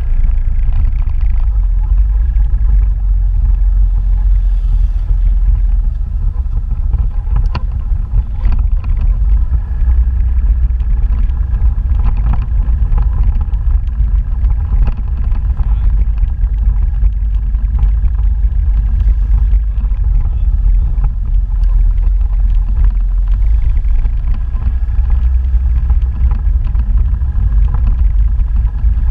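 Steady low rumble of a motorbike ride: the engine running under loud, wavering wind noise on the microphone.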